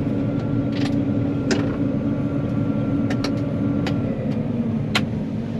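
John Deere 9500 combine running, heard from inside the cab: a steady low drone with a constant hum that drops slightly about four seconds in, and a handful of sharp clicks scattered through it.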